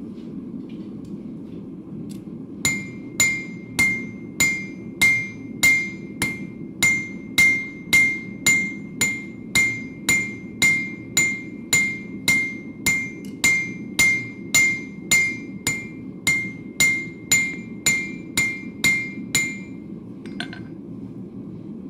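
Blacksmith's hammer shaping a hot horseshoe on the anvil: ringing blows at about two a second, starting about three seconds in and stopping near the end, with a couple of light taps after. Under it runs the steady noise of the forge.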